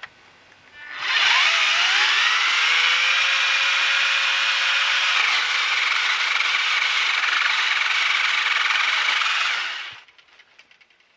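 Ryobi 40-volt cordless 10-inch pole saw's electric motor and chain spinning up with a rising whine, then running steadily for about nine seconds while cutting through a tree branch. It stops shortly before the end.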